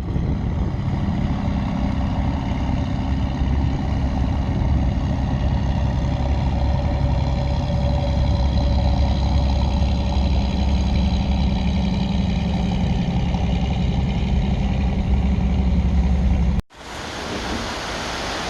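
Steady hum of a motor vehicle's engine with road noise, running evenly and then cutting off suddenly near the end. A hiss of wind follows.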